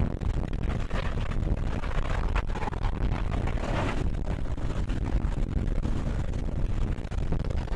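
The four Wright R-3350 radial engines of a B-29 Superfortress running as it taxis: a steady, deep drone with no break.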